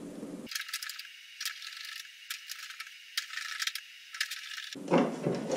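Small metallic clicks and rattles from a screw being handled on a screwdriver tip, sounding thin with no low end. Near the end come a couple of duller knocks.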